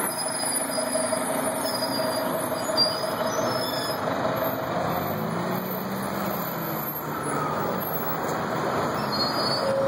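City transit bus driving past close by and pulling along the curb, engine and road noise steady, with a thin whine for the first few seconds and the engine note rising about five seconds in.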